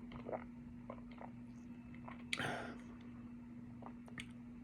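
Faint mouth sounds of a man sipping and tasting cranberry cider: small lip and tongue clicks and a short sip or breath about halfway through, over a steady low hum.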